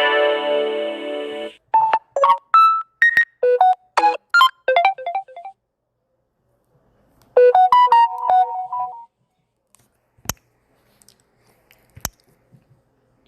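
Samsung Galaxy A20 ringtones playing one after another: a held synth chord, then a quick run of short plinking keyboard notes, a pause of about two seconds, and another short melodic phrase. Two sharp clicks sound near the end.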